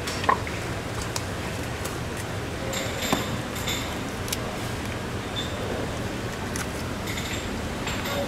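A knife cutting into a large cobia behind the pectoral fin and gill, with a few short clicks and knocks of the blade and fish against bone and the wooden board, the sharpest about a third of a second in and about three seconds in, over a steady background hum.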